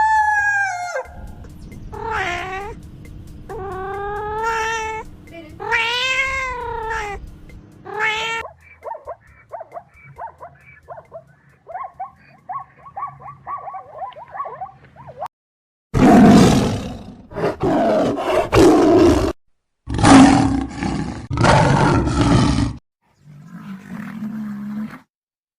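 A series of different animal calls: pitched calls that rise and fall over a low steady hum, then a run of short rapid calls, then two loud, rough roars from a large animal in the second half.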